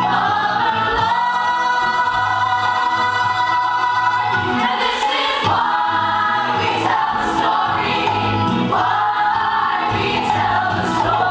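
A stage musical's full cast singing together as a chorus over the show's musical accompaniment.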